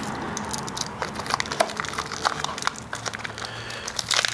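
Plastic wrapping and paper crinkling and rustling as handlebar riser blocks are unwrapped from their package, a run of small irregular crackles.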